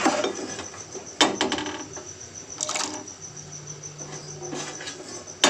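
A few sharp clinks of a utensil against a bowl as chopped carrot is added, about a second in, near the middle and at the end. Behind them runs a steady high chirping of crickets.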